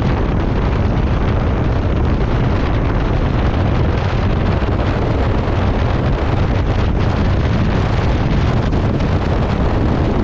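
Steady wind rumble buffeting the microphone while riding along the highway in heavy rain, with road and rain noise mixed in.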